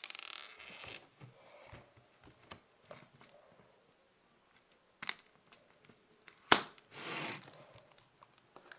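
Handling noise: rustling and scattered small clicks, with a sharp click about five seconds in and a louder sharp knock about six and a half seconds in, followed by a brief rustle.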